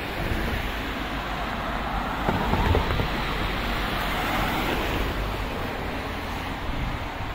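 Cars driving past on an asphalt street, their tyre and engine noise swelling as each goes by: the first about two and a half seconds in, the second a couple of seconds later.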